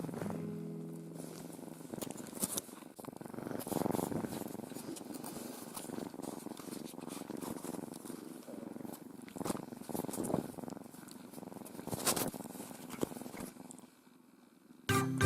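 Siamese-mix kitten purring, with a few faint rustles.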